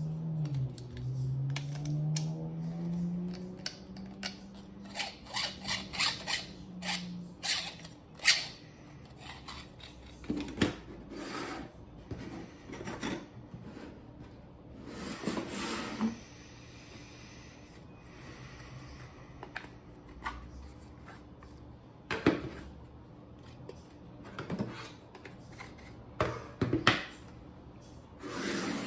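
3D-printed plastic parts of a filament winder handled and fitted together by hand: sharp clicks and knocks of plastic on plastic and on the table, with short rubbing scrapes. A low wavering squeak sounds in the first few seconds.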